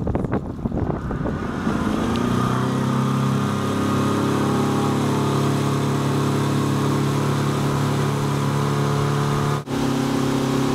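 Motorboat engine throttling up about two seconds in, then running steadily at speed under load while towing an inflatable tube, with a brief break in the sound near the end.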